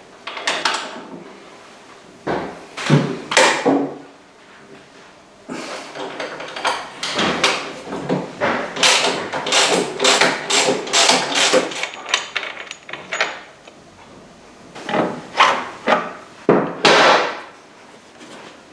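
Tools and metal parts knocking and scraping during motorcycle rear-end disassembly. There are a few sharp knocks at first, then a quick run of many strokes in the middle, and a few more near the end.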